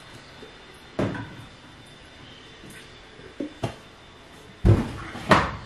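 Household knocks and clunks from handling laundry things: a glass canister's wooden lid lifted off and set down, with a few light knocks, then two heavier thumps near the end.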